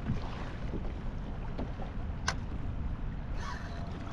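Steady low rumble of wind and moving water around a kayak, with one sharp click about two seconds in and a short hiss near the end.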